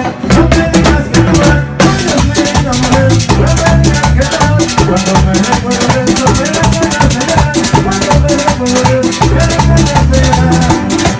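Live band music with guitars, bass and drums, driven by a brisk, steady rattling percussion beat.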